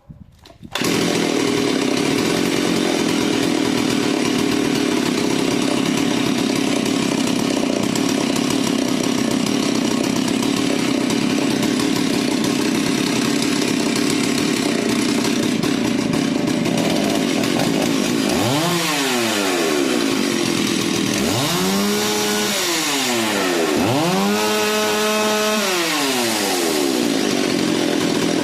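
Stihl 038 two-stroke chainsaw running loud and steady. Near the end the throttle is opened three times, the engine note rising and falling each time, the last rev held for a couple of seconds before dropping back.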